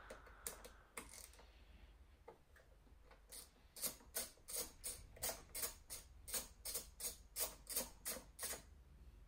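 Small hand ratchet clicking as it loosens a motorcycle airbox bolt. There are a few scattered clicks at first, then a steady run of about three clicks a second from about three seconds in until shortly before the end.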